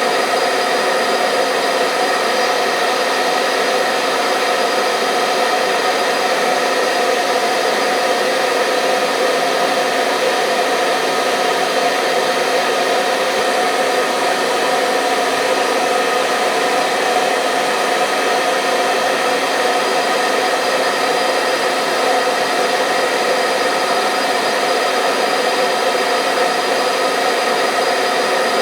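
Hair dryer running steadily: an even rush of blowing air with a steady motor whine, unchanging throughout.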